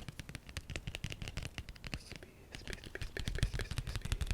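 Rapid ASMR tapping: many light, quick clicks a second, with a brief lull a little over two seconds in.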